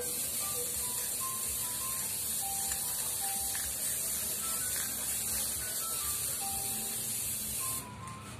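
Aerosol can of Bosny clear spray paint hissing in one continuous spray, used as a fixative over a charcoal drawing, cutting off abruptly near the end. Soft background music plays underneath.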